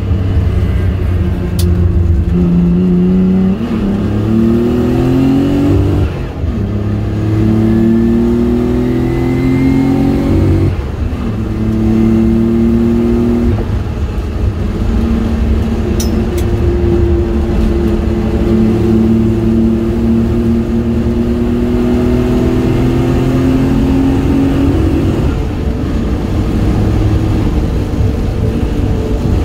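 Nissan 300ZX engine heard from inside the cabin, pulling hard on track with its pitch climbing through the gears. There are upshifts about six and ten seconds in, then a long steadier pull, and it eases off near the end.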